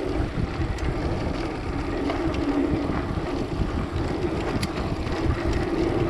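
Steady wind buffeting on a GoPro's microphone from a mountain bike riding along a sandy dirt track, mixed with the rumble of the tyres rolling over the ground.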